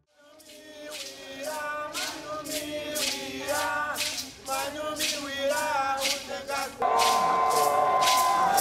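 A group of voices singing a chant over a percussion beat of about two strokes a second, fading in from silence. Near the end it grows louder, with long held notes.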